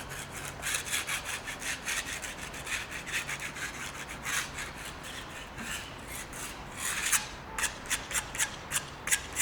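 Repeated rough scraping strokes, irregular at first, then settling into an even rhythm of about three strokes a second near the end.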